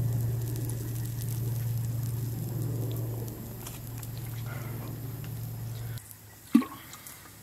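Faint sizzling and crackling of bacon frying over a campfire, under a steady low hum that cuts off abruptly about six seconds in. Two sharp knocks follow near the end.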